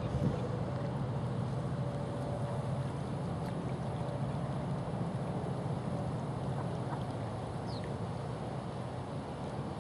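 A steady low rumble of outdoor background noise, even throughout, with a faint short high chirp about eight seconds in.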